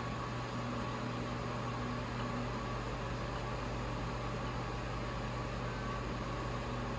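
Fulcrum CNC router's stepper motors jogging the X-axis gantry out: a faint steady motor whine over a constant low hum.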